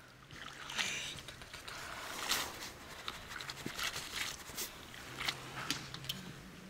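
Hands rinsing boiled noodles in a steel basin of water: irregular small splashes, drips and squishes as the noodles are rubbed, lifted and dropped back.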